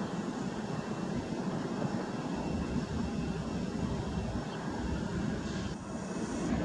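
Jet engines of an Airbus A320neo (CFM LEAP-1A turbofans) running on the runway: a steady, low-pitched noise without clear tones.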